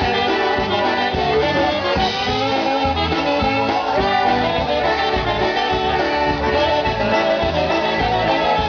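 Live polka band playing an instrumental passage, trumpets and concertina carrying the tune with clarinet, saxophone and piano accordion, over a steady bass and drum beat.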